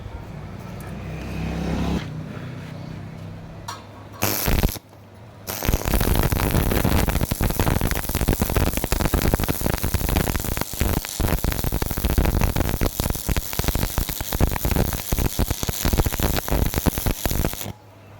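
Stick welding arc on reinforcing iron: a brief strike about four seconds in, then a loud, steady crackle of the burning electrode for about twelve seconds that cuts off suddenly near the end.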